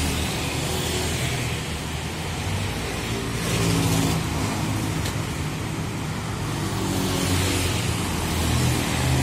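Street traffic of motor scooters and cars passing close by, a steady mix of small engines and tyre noise that swells and fades as each vehicle goes past.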